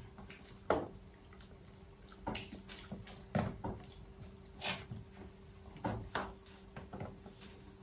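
Eating and food-handling sounds: scattered short crackles, clicks and wet squishes from food being picked apart by hand and chewed, a few seconds apart, over a faint steady hum.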